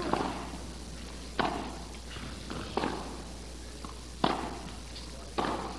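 Tennis rally: a ball hit back and forth by rackets, sharp pops about every second and a half with fainter ball bounces between them, echoing in a large indoor hall.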